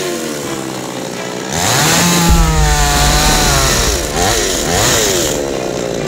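Petrol chainsaw revving up and cutting through a slim tree trunk, its engine pitch sagging under load in the cut. Near the end the revs rise and fall several times.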